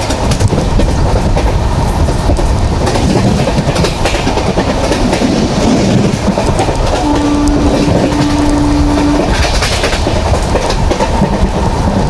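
Shatabdi Express coach running at speed: a steady heavy rumble with clicks of the wheels over rail joints. About seven seconds in, the train's horn sounds one steady low note for about two seconds, with a brief break after its start.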